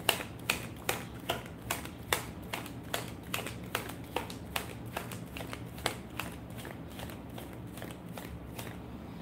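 Tarot cards being shuffled by hand: a steady run of sharp card snaps, about two or three a second, growing softer after about six seconds.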